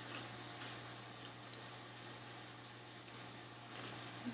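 A person quietly chewing a grilled cheese sandwich with Flamin' Hot Fritos, with a few faint mouth clicks, over a low steady hum.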